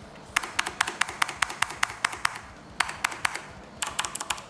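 Fast typing on a mechanical keyboard with clicky Cherry MX Blue switches: quick runs of sharp, slightly high clicks in three bursts with short pauses between.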